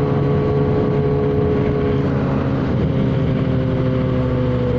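Yamaha XJ6's 600 cc inline-four with a Jeskap aftermarket exhaust running at steady high revs under way, its pitch stepping up slightly about halfway through.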